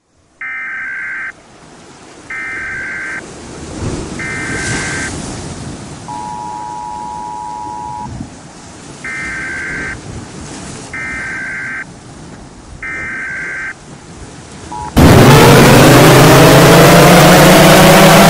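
Emergency Alert System alarm: three one-second bursts of screeching data tones, a two-tone attention signal held for about two seconds, then three more data bursts, over a hissing, rumbling background. About fifteen seconds in, a much louder siren-like wail starts, rising in pitch and then holding steady over heavy noise.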